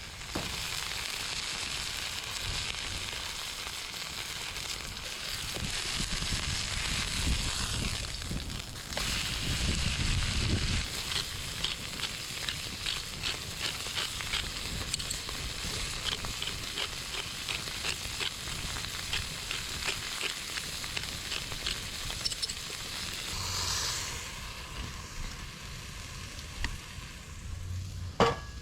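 Steak sizzling over a wood campfire: a steady frying hiss with many quick small pops. A single sharp click comes near the end.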